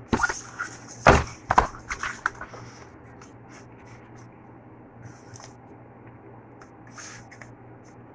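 A cardboard cake box and its dividers being handled: a few sharp knocks and scrapes in the first two seconds, loudest about a second in, then light scattered taps as small cakes are set into it.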